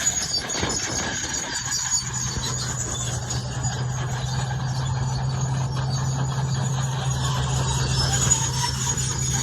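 Crawler bulldozer at work: its diesel engine running steadily with a low hum, and high-pitched squealing from the steel tracks.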